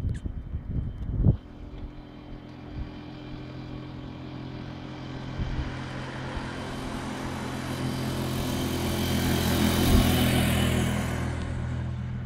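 Beiben 6x4 dump truck's 380 hp diesel engine running steadily, with tyre and road hiss swelling as the truck comes close and easing off near the end. A gusty rumble on the microphone and a sharp knock come in the first second or so.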